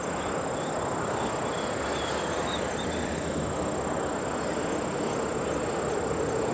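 Distant Boeing 767-300ER jet airliner on landing approach: a steady, even engine rumble. A thin high steady tone and a few faint chirps sit over it.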